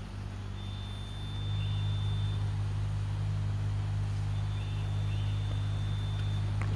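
An engine running steadily with a low, even drone, with a couple of sharp clicks at the very end.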